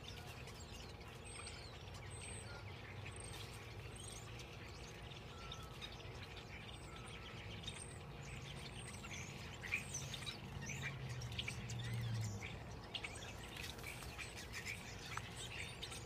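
A flock of birds chirping together: a steady chorus of many short, high chirps overlapping, with a faint low rumble underneath for a few seconds in the middle.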